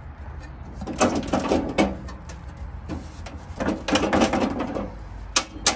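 Metal RV entry steps rattling and clinking as a bolt is worked by hand through the lined-up holes of the swinging bracket and the step frame. There are two bouts of clattering, then two sharp metal clicks near the end.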